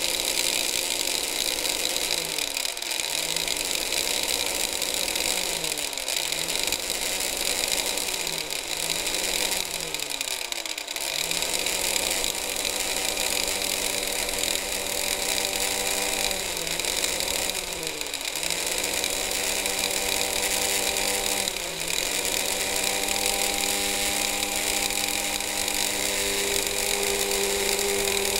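Kitchen mixer-grinder's motor running at high speed with a steady whine, spinning a homemade cotton candy head. Its pitch dips briefly and recovers about nine times.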